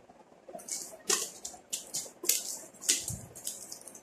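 Brown packing tape crinkling and rustling as it is wound by hand around a small box, in short scratchy bursts about twice a second, with a soft thump about three seconds in.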